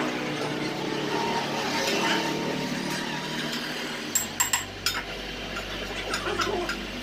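Several sharp metallic clinks, like tools or engine parts being handled, over a low steady hum. These come after a stretch of steady, layered tones.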